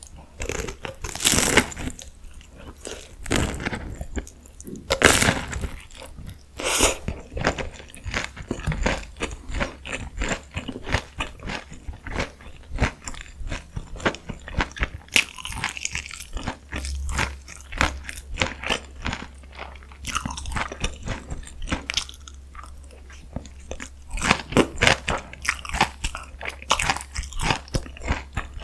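Close-miked eating of crispy deep-fried food: loud crunching bites every few seconds, with quieter crackling chewing in between.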